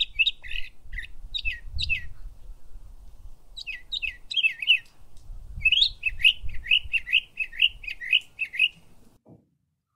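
Small bird chirping in short falling notes: a few at first, then a fast run of about three chirps a second from about five and a half seconds in, over a faint low rumble. The sound cuts off suddenly just after nine seconds in.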